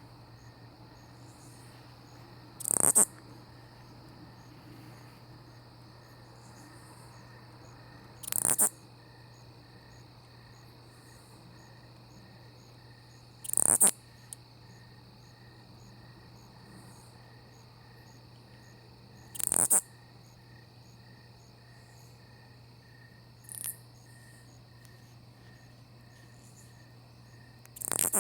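Katydid calling close up: short, loud, high-pitched raspy bursts of about half a second, repeated roughly every five to six seconds, over a steady faint chorus of other night insects.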